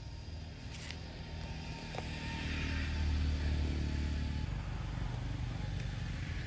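Low hum of a motor vehicle engine nearby, growing louder about two seconds in.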